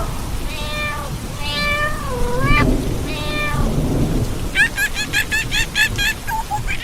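A young monkey giving high, wavering squealing cries, then a quick run of short high chirps at about four a second, over a steady low rumbling noise.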